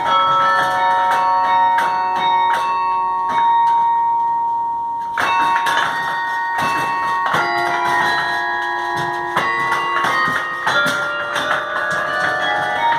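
Carillon bells playing a slow melody, each struck note ringing on and overlapping the next. About four seconds in the striking thins to a single held tone, then a cluster of notes is struck together and the melody carries on.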